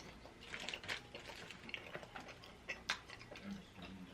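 Close-up eating sounds: quiet chewing and lip smacks, heard as an irregular scatter of small wet clicks.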